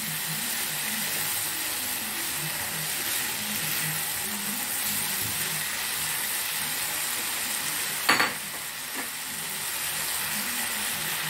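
Sujuk sausage, potatoes, peppers and tomatoes sizzling in oil in a frying pan while a spatula stirs them, with uneven scraping. One sharp knock a little over two-thirds of the way through.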